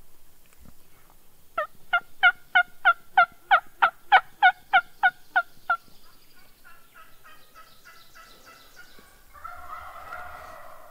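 A loud run of about fourteen turkey yelps, about three a second. Then comes a fainter, quicker string of notes, and a rolling turkey gobble about a second before the end.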